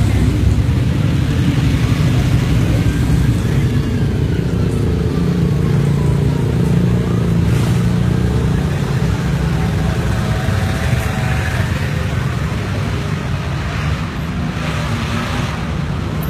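Motorbikes of a convoy riding past, their engines running together in a steady mix with pitch sliding up and down as single bikes go by.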